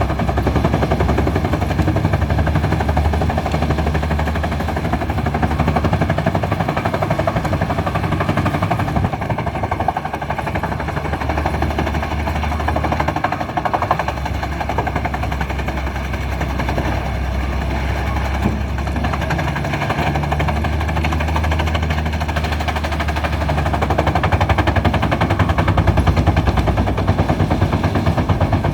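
Industrial wood chipper chipping logs fed by a Hidromek 140W wheel excavator: a loud, fast rattling clatter over the steady drone of diesel engines. The low engine note drops briefly twice, around the middle and about two-thirds through.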